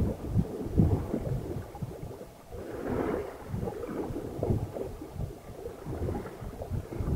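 Water rushing and splashing along the hull of a sailing yacht under way, with wind buffeting the microphone in irregular low rumbles.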